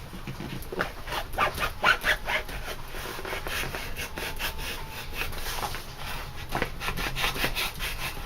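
Hard plastic clamshell packaging being cut and prised open: irregular crackling, scraping and snapping of stiff plastic, busiest in the first few seconds and again near the end.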